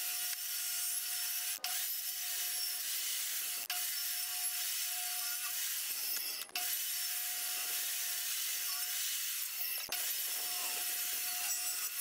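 Portable jobsite table saw running and cutting sticks: a steady hiss with a constant whine, broken by a few very short gaps.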